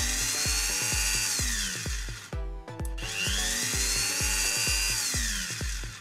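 Dremel MultiPro rotary tool's motor switched on by the remote, whining up to speed, running about two seconds and spinning down, twice. Background music with a steady beat plays throughout.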